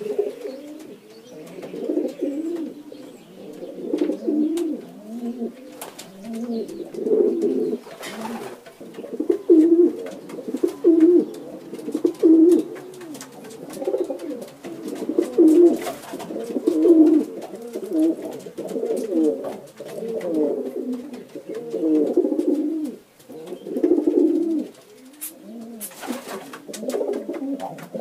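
Pigeons cooing, a continuous run of low, rolling coos repeating about once or twice a second.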